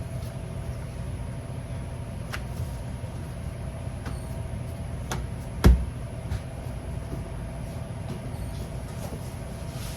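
Light taps and knocks of food preparation on a kitchen counter over a steady low hum, with one louder thump a little past halfway.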